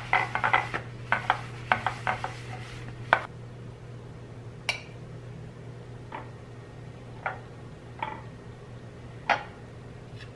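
Metal spoons and a metal madeleine pan clattering and clinking. A quick run of clatters comes in the first three seconds, then single clinks about once a second as batter is scooped from a glass bowl and spooned into the pan.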